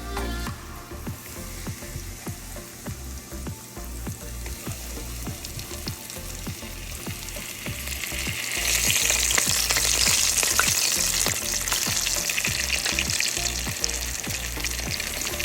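Breaded catfish nuggets frying in hot oil: a steady sizzle that swells much louder about eight seconds in.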